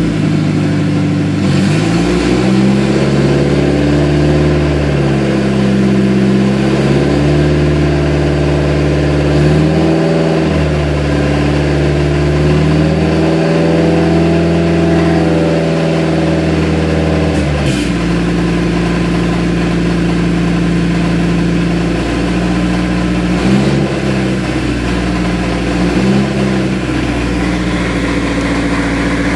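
1998 Toyota Camry's engine running in drive, revved up and down several times, then dropping back to a steady run a little past halfway, with two short blips of throttle later. The driver-side CV axle is broken, so the revs do not get the car moving.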